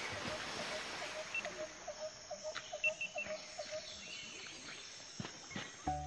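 Outdoor ambience with an animal repeating a short low note about four times a second for some three and a half seconds, with a few brief higher chirps in the middle.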